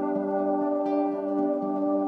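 Ambient background music of long sustained notes layered over each other, with a new note entering about a second in.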